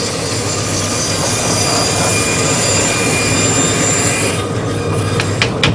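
A harsh, continuous metal-on-metal screech with high steady squealing tones from tool work at a hurley maker's bench, stopping about four seconds in, followed by a few light clicks.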